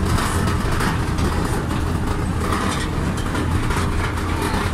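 Engine of an open-sided game-viewing vehicle running steadily as it drives over a rough track, heard from on board, with frequent small rattles and knocks.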